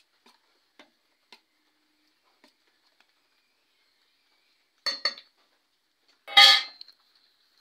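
Stainless-steel spoon and bowls clinking while rice flour is tipped in and stirred into a spiced aubergine mash: a few light clicks, two sharp clinks about five seconds in, then a loud ringing clank near the end.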